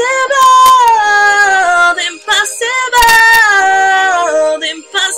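A female voice singing long held notes with vibrato that slide downward, in phrases with short breaks between them.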